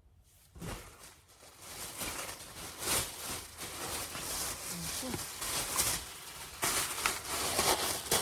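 Rustling and crinkling handling noise, as a blanket is moved about and unpacked.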